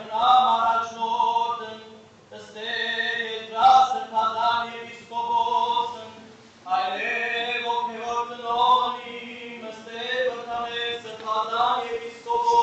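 Men's voices chanting an Armenian Apostolic liturgical hymn in melodic phrases over a steady held drone note, with two brief breaks between phrases.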